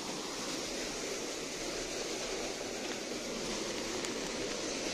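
Fast-flowing water rushing steadily, an even roar with no breaks.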